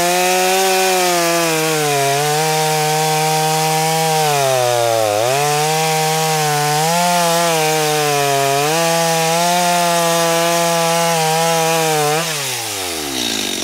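Stihl MS 250 two-stroke chainsaw at full throttle cutting through an oak trunk, its engine speed sagging and recovering under load, with a deep dip about five seconds in. The chain is worn and in need of sharpening, so the saw has to be pushed rather than cutting by its own weight. About twelve seconds in the throttle is released and the revs fall away.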